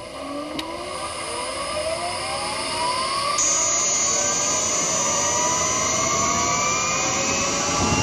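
Honda Insight's i-MMD hybrid drive pulling away on electric power, heard from inside the engine bay. The permanent-magnet traction motor and VVVF inverter whine, and several tones rise steadily in pitch as the car gathers speed. About three and a half seconds in, a high steady inverter tone sets in.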